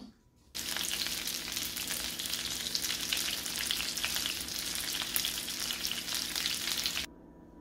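Breaded chicken cutlets frying in shallow oil and butter in a skillet: a steady crackling sizzle that starts about half a second in and cuts off near the end.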